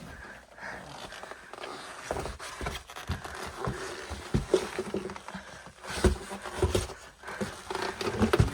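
Footsteps and scraping on rock with clothing rustling as someone picks their way through a narrow cave passage: irregular knocks and scuffs, the loudest about six and eight seconds in.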